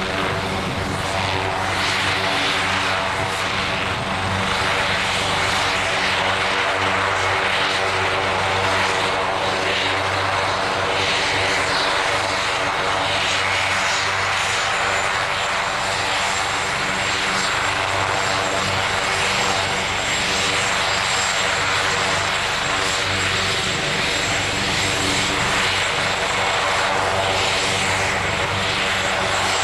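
AgustaWestland AW139 air ambulance helicopter running on the ground with its rotors turning: a steady rotor thrum over the whine of its twin turbine engines. A thin high whine rises slightly about halfway through and then holds.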